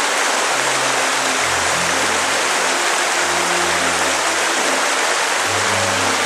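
Rushing water of the Kamenice river flowing under a footbridge: a steady, even hiss.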